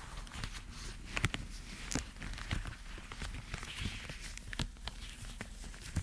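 Irregular light taps and clicks on a hard object close to the microphone, with soft scratching or rustling between them.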